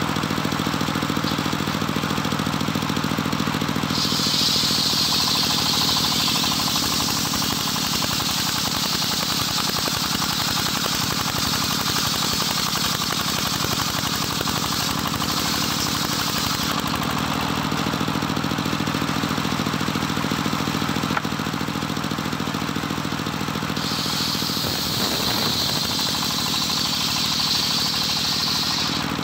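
Homemade engine-driven table circular saw: the engine runs steadily throughout while the blade rips through johar timber, its high sawing hiss lasting from about four seconds in to about seventeen seconds. After a stretch with only the engine running, a second cut starts near the end.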